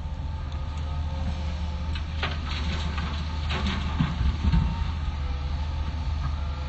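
Hitachi hydraulic excavator's diesel engine running steadily with a steady whine, and a run of metallic clanks and knocks from about two seconds in, loudest past the middle.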